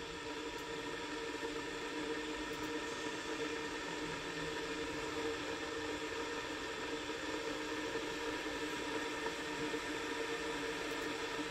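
Kettle heating water toward the boil: a steady hiss with a faint hum, slowly growing louder.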